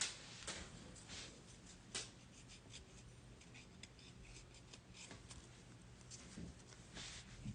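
Faint handling of baseball trading cards: scattered light taps, clicks and soft slides as the cards are sorted, over a low steady hum.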